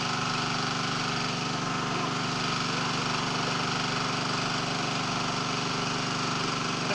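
Small engine-driven water pump running steadily, sucking water out of a flooded grave pit through a corrugated suction hose.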